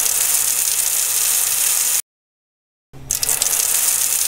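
A loud, steady hiss with a little crackle at its start, stopping abruptly about two seconds in. After about a second of dead silence the same hiss starts again and runs on.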